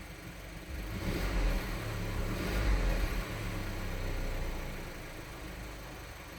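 Seat Leon Mk3's 1.4 TSI four-cylinder turbo petrol engine running at idle. About a second in, a louder low rumble swells, holds for a couple of seconds and then fades back to the idle level.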